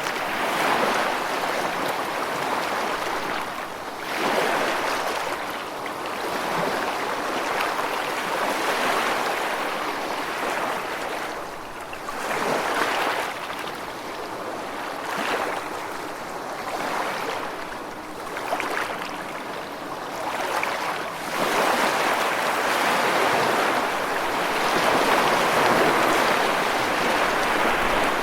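Gentle sea waves washing onto a sandy beach, each wash swelling and fading every few seconds, with a longer, fuller wash near the end.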